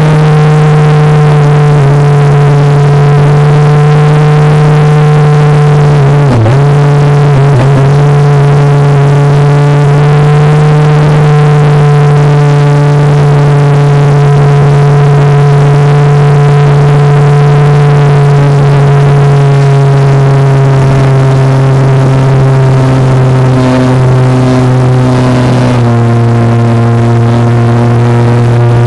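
RC model plane's motor and propeller heard from on board: a loud, steady whine with rushing air noise. The pitch dips briefly twice about six to seven seconds in, and settles lower a few seconds before the end as the throttle is eased back.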